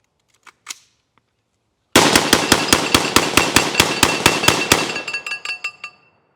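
A rapid string of gunshots, about six a second, starts about two seconds in and lasts nearly three seconds. Steel targets ring with each hit, and the ringing fades away over about a second after the last shot.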